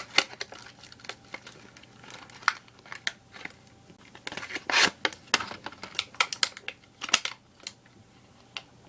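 Fidget spinner packaging being opened by hand: irregular clicks, crinkles and short tearing noises, the loudest about five seconds in.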